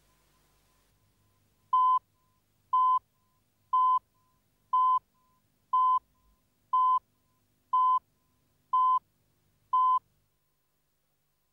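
Countdown-leader beeps: nine short, identical high-pitched beeps, one each second, marking the numbers of a video countdown.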